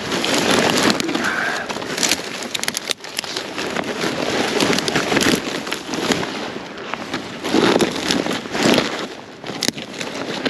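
Rustling and crackling of handled rubbish and undergrowth, with scattered sharp snaps.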